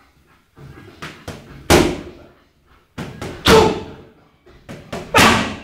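Hard boxing punches landing in three quick combinations, each two lighter hits followed by a loud heavy blow, the heavy blows about every second and three-quarters.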